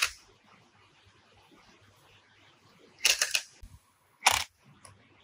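Cordless impact driver with a socket tightening the nut that holds a wire brush disc on an electric motor's shaft, running in short bursts: one brief at the start, a rattling one about three seconds in and another about a second later.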